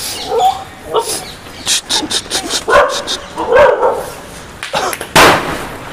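Dogs barking: a handful of short barks, the loudest about five seconds in.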